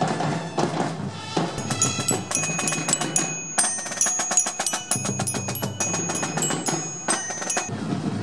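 Metal-bar glockenspiel struck rapidly with a mallet, bright ringing notes over drumming. The notes start about a second and a half in and stop shortly before the end.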